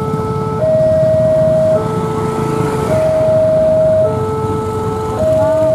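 Railway level-crossing warning alarm sounding, alternating between a higher and a lower electronic tone, each held a little over a second, over a low rumble.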